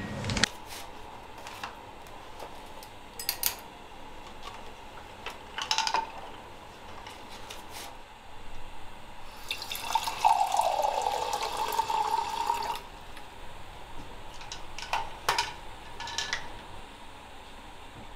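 Bathroom tap running into a glass for about three seconds, with a ringing tone as the glass fills, around the middle. Before and after, a few light knocks and clinks of the glass on the sink counter.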